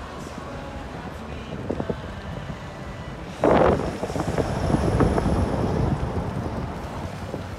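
Wind buffeting the microphone of a camera riding along on a bicycle, over a rough, rumbling road and traffic noise, with a sudden loud burst of noise a little over three seconds in.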